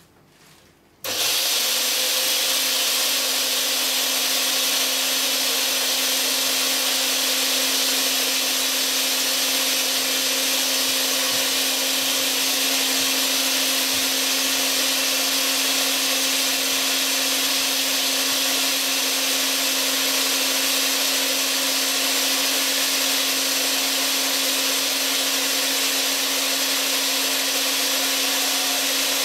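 Countertop blender switched on about a second in, its motor running at a steady speed as it grinds whole wheat grains into wholemeal flour: a loud, unchanging hum with a steady hiss over it.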